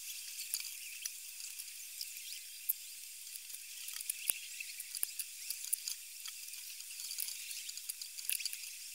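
Faint scattered ticks and light scraping of a wooden modelling tool worked against soft clay, with a few sharper clicks, over a steady high-pitched hiss.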